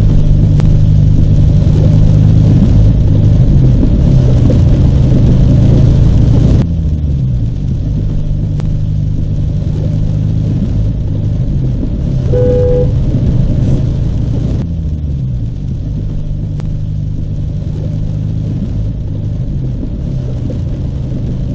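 Car engine and road noise heard from the vehicle, steady and loud, dropping abruptly in level about a third of the way in. A car horn toots briefly just past the middle.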